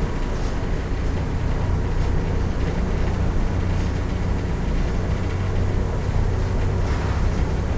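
Mercedes-Benz OF 1418 bus's diesel engine running steadily with a low hum.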